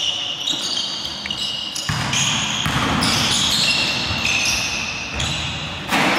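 Basketball game sounds on a hardwood court: sneakers squeaking in short, high squeals and a basketball bouncing, with players' voices faint underneath. The overall sound changes suddenly about two seconds in and again near the end.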